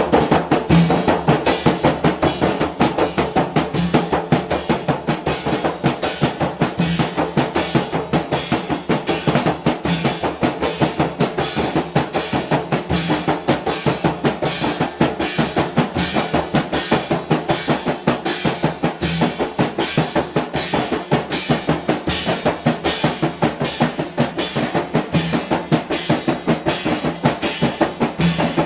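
Several large Mandar rebana frame drums struck by hand together in a fast, even rhythm.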